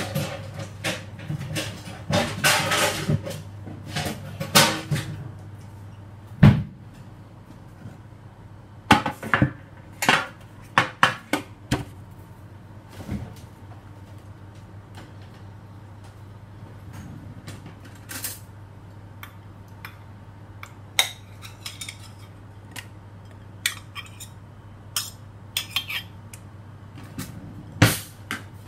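Kitchen clatter of utensils scraping and knocking against a stainless steel mixing bowl and a metal baking tray: scattered sharp knocks and scrapes, over a steady low hum.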